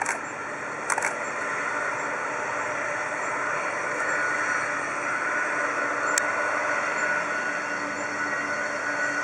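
Boeing 747-400's four turbofan engines whining at low taxi thrust as the airliner rolls closer, slowly growing louder. Sharp clicks at the start, about a second in, and about six seconds in.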